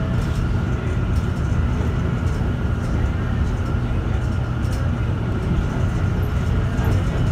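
Steady engine and road rumble of a moving city bus heard from inside its cabin, with a faint steady whine above it.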